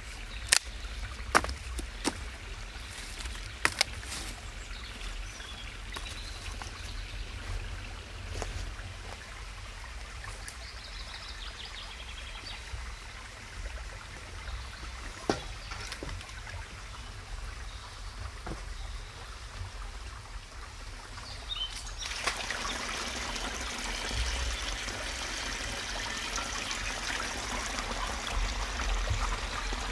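Sharp cracks and snaps of dry sticks being broken and handled, a few loud ones early on and one in the middle. About two-thirds of the way in, a small spring starts to be heard, trickling steadily off a mossy bank, with a cast-iron skillet held under it near the end.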